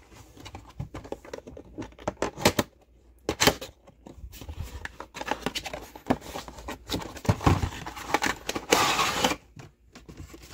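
Packaging of a diecast car multipack being cut and torn open: scattered clicks, knocks and crinkles, with a longer tearing rip near the end.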